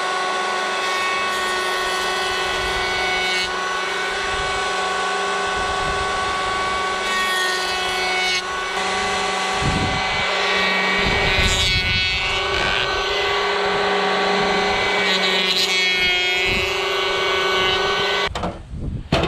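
Cordless electric hand planer running with a steady whine as its cutter head shaves a rough-sawn wooden joist. It takes down a spot that is a little over 3 inches thick so the joist fits its 3-inch notches. The cutting grows rougher at times, and the planer is switched off near the end.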